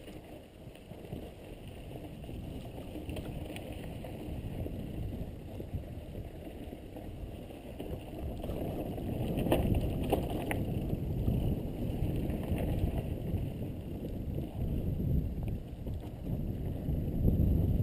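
Wind rushing over a helmet-mounted camera's microphone and tyres rolling on a dry dirt trail as a mountain bike descends, getting louder toward the end as the bike speeds up. A couple of sharp knocks, the bike rattling over bumps, come about ten seconds in.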